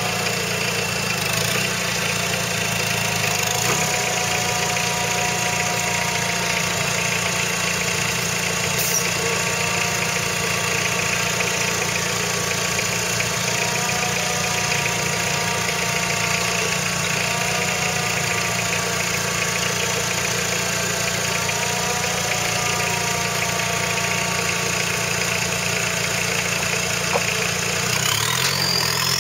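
Modified off-road 4x4's engine idling steadily, with a higher wavering whine over it. A rising whine comes in near the end.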